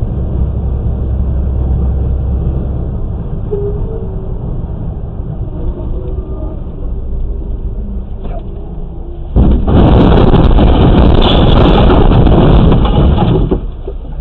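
Steady low road and engine rumble of a vehicle on the highway, heard through a dashcam microphone inside the cab. About nine seconds in, a much louder rushing noise comes in and lasts about four seconds before dropping back to the rumble.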